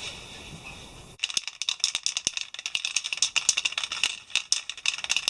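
Chain brush scrubbing a degreased motorcycle drive chain: a quick, irregular run of scratchy strokes and rattling clicks of the chain links, starting about a second in.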